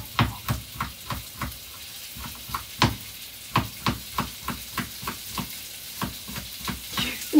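Stir-frying in a frying pan: a light sizzle under a quick run of sharp knocks, about three to four a second, as a utensil works against the pan.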